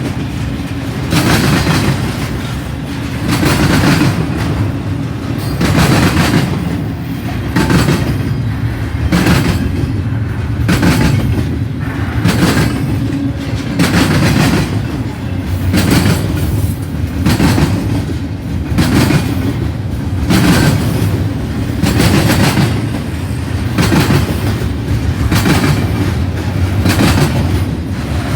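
Intermodal freight cars of a passing train rolling by, with wheels clacking over the rail joints in a steady rhythm of about one to two clacks a second over a continuous low rumble.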